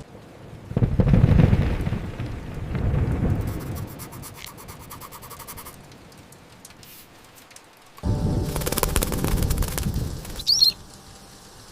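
Thunder rumbling low over rain, swelling about a second in and fading over a few seconds. About eight seconds in, a louder rush of storm noise starts abruptly and cuts off near the end.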